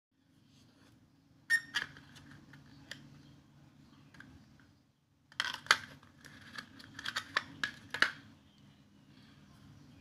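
Clicks and scraping of hard plastic as a Sanrenmu 4079 folding pocket knife is handled in and pried out of its moulded plastic box insert: a few sharp clicks about a second and a half in, then a busier run of clicks and rustling from about five to eight seconds in, over a low steady hum.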